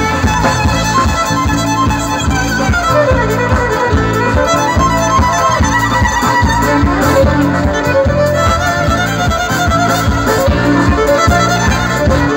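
Live folk-rock band playing, with a fiddle carrying a gliding melody over a steady drum beat, electric guitar and bass guitar.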